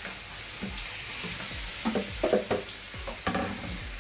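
Seasoned chicken pieces sizzling in hot groundnut and chili oil in a pan. From about two seconds in, a cooking utensil scrapes and knocks against the pan in quick strokes as the chicken is stirred.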